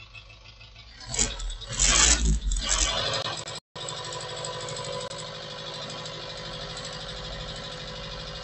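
Ford Transit Mk5 engine idling, then revved in several loud bursts about a second in and settling back to a steady run. The engine is burning oil and pours out blue smoke. The sound cuts out for an instant a little after three seconds in.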